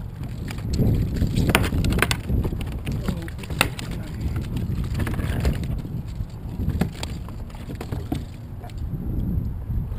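Wind rushing over the microphone, with a few sharp knocks and clicks as a landed fish, the rod and the reel are handled on a plastic sit-on-top kayak. Most of the knocks fall in the first few seconds, with one more about two-thirds of the way through.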